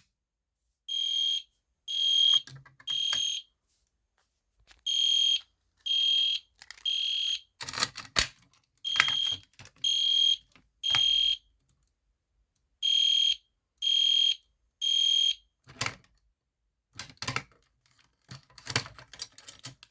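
EST Genesis horn strobe sounding the temporal-three fire alarm pattern: three short high-pitched horn blasts, a pause, repeated four times, then it stops. A few sharp clicks and knocks fall around the middle and after the horn stops.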